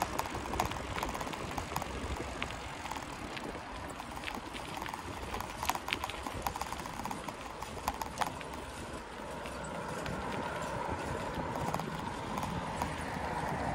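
Bicycle rolling over a rough, gravel-strewn road: steady tyre noise with many irregular knocks and rattles as the wheels hit bumps and loose stones.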